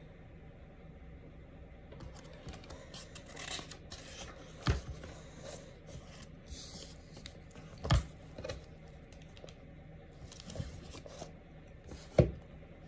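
Paperback book pages rustling and scraping under the hands, with three dull thumps about three seconds apart, the last one the loudest.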